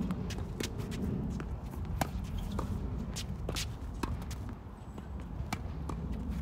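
Tennis balls struck by rackets and bouncing on a hard court during a singles rally, sharp pops every second or so, with sneakers shuffling on the court surface over a steady low rumble.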